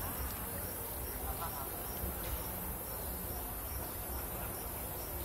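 Steady high-pitched insect chorus, a continuous shrill drone.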